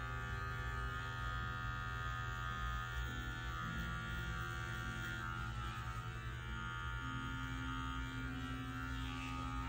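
Electric dog grooming clippers fitted with a #15 blade, running with a steady buzzing hum while they trim the hair at the corners of a puppy's eyes.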